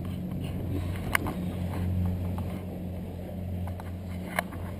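Suzuki outboard motor idling, a steady low hum, with two short sharp knocks, one about a second in and one near the end.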